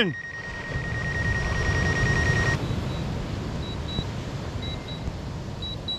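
DJI drone remote controller sounding a steady high warning tone, which cuts off about two and a half seconds in, followed by a few short, higher beeps, over a low rushing background. The alarm is a flight warning: the drone is stuck far out over the sea, reporting high wind and interference, and will not return.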